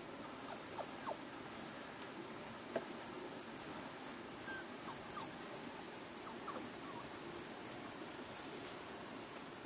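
Insects trilling in a steady high-pitched drone that breaks off every second or so, with a few faint short chirps.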